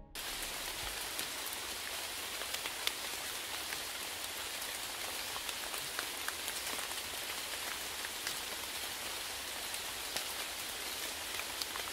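Steady rain falling: an even hiss with scattered sharp drop ticks, cutting in suddenly.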